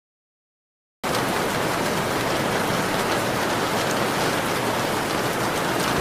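Steady, dense rainfall that cuts in suddenly about a second in after silence.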